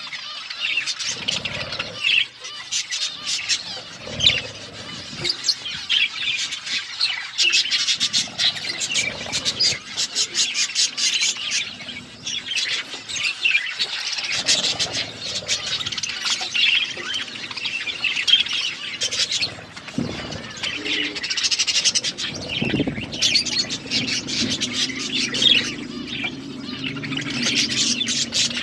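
Budgerigars chirping and chattering continuously: a dense stream of quick, high chirps and squawks.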